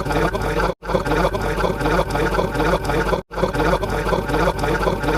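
A short sound effect of about two and a half seconds, played on a loop and cutting out briefly between repeats. It mixes voice-like sounds with a watery, pouring noise.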